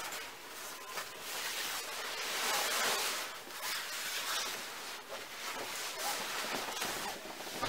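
Nylon fabric of a travel cot's bassinet insert rustling in swells as it is handled and pulled over the rail, with a few light clicks.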